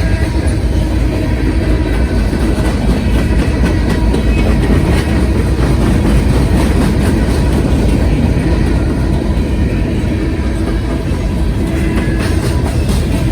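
CSX freight train rolling past close by: a steady, loud rumble from the wheels, with frequent clicks as they pass over the rail.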